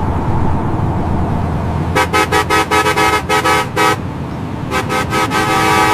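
Telolet bus horn: a multi-tone musical horn honked in a rapid chopped rhythm, in two runs of about two seconds each, starting about two seconds in. Before it there is a steady noisy rumble.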